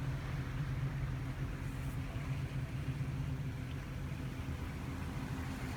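Motorboat engine running steadily: a low, even drone over a hiss of wind and water.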